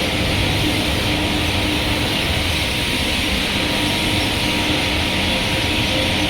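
Two-ton foundry melting furnace running: a steady, unbroken industrial noise with a low rumble and faint constant hum tones.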